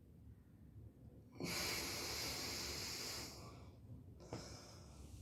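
A person's long, forceful breath in Ujjayi pranayama, a hiss lasting about two seconds, followed near the end by a fainter short breath.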